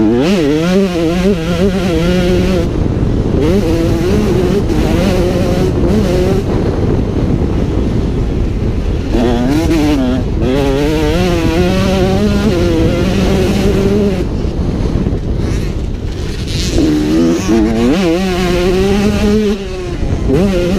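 KTM 125cc two-stroke motocross engine ridden hard, its note climbing and falling sharply as the throttle is worked. The note drops away twice for a few seconds when the throttle is shut, leaving wind rush on the helmet-mounted microphone.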